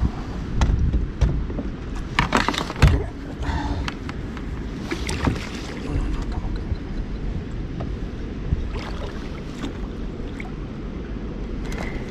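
Handling sounds in a kayak: scattered knocks, clicks and rubbing of gear against the hull over a steady low rumble.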